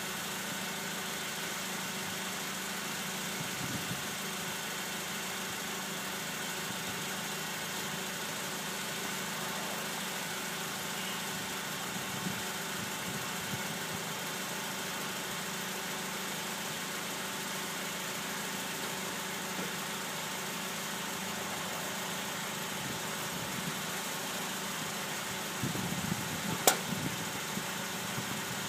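Steady hum of a car engine idling, with a single sharp click near the end.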